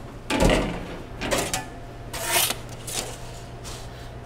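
Kitchen work sounds: a knock about half a second in, then a few short clatters and a scrape, over a steady low hum.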